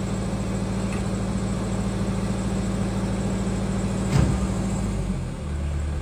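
Excavator's diesel engine running steadily, with one sharp knock about four seconds in. Near the end the engine note drops to a lower pitch.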